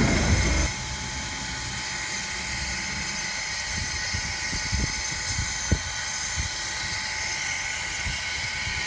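Standing steam locomotive hissing steadily as it vents steam near its cylinder. A louder blast of steam cuts off less than a second in, and a few low thumps come in the middle.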